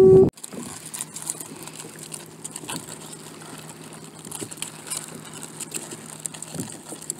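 A loud steady tone cuts off abruptly just after the start. Then, from a crab net full of Dungeness crabs, comes faint pattering and small clicks of water dripping, over a low steady hum.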